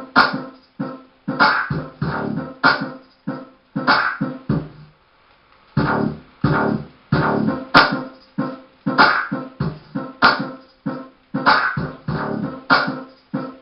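Music with a steady, punchy beat; it drops out briefly about five seconds in, then resumes.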